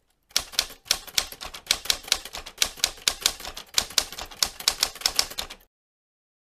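Typewriter keys clacking in a quick, uneven run of several strikes a second, stopping suddenly near the end.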